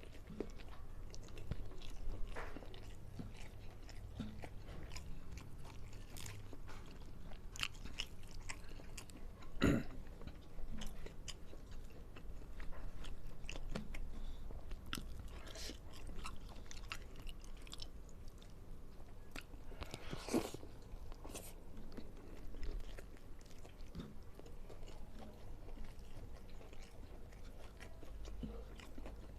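Close-miked eating: a person chewing and biting a mouthful of rice and side dishes, with wet mouth clicks and occasional crunches from raw vegetables such as cucumber and lettuce. Two louder crunches come about ten and twenty seconds in.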